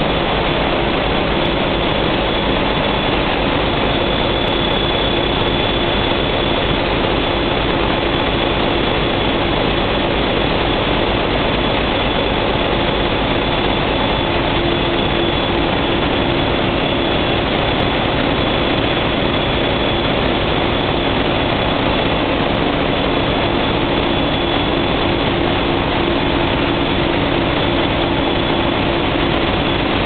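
Loud, steady running of a cruise ship's diesel generator engine heard close to its turbocharger: a continuous mechanical roar with a constant high whistle above it.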